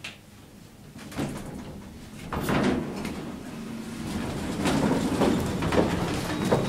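R&R passenger lift's sliding doors opening, a rising rumble that swells about a second in and peaks a little after two seconds. It is followed by a few short knocks and handling noise as someone steps out over the door sill.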